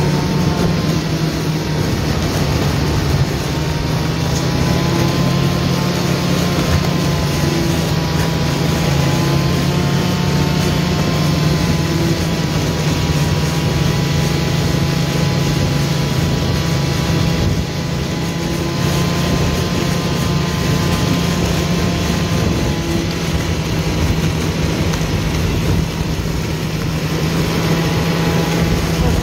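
Snowmobile engine running at a steady cruising speed, a loud continuous drone whose pitch wavers slightly up and down.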